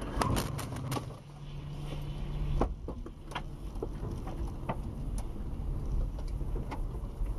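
Road and engine noise heard inside a moving car, with a quick run of sharp knocks and rattles in the first second. After that comes a steady low hum with scattered clicks and thuds.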